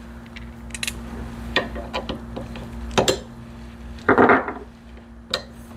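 Small steel nuts clinking in the hand and against the steel truck frame during hand assembly: a few sharp separate clicks, with a longer rattle about four seconds in.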